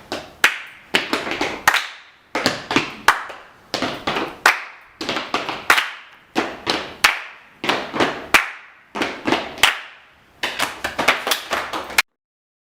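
Body percussion: hand claps and slaps on the body in short repeating rhythmic groups, cutting off suddenly near the end.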